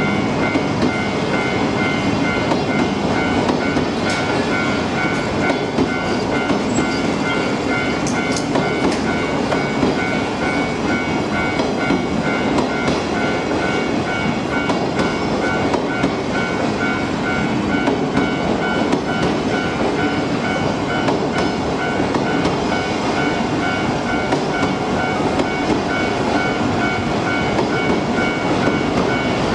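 Hokutosei sleeper train coaches being propelled past a Japanese level crossing, wheels clicking over the rail joints. A level-crossing warning bell rings over it in an even, repeating two-tone pattern.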